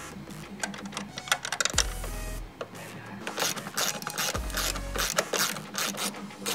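Ratchet wrench clicking in quick runs of rapid clicks while tightening a nut onto a bolt, with the densest clicking in the second half.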